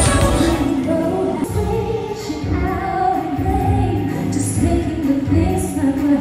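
A woman singing into a microphone over instrumental accompaniment, a sustained wavering melody over a steady low backing.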